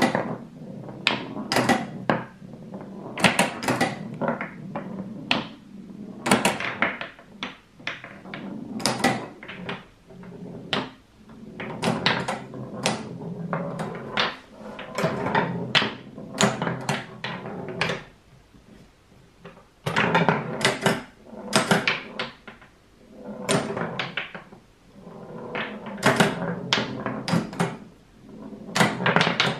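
Homemade wooden pinball game in play: the ball rolls across the plywood playfield and clacks against the wooden flippers, rails and posts, with irregular sharp knocks from flipper hits and a low rolling rumble between them. A lull of about two seconds comes a little past the middle.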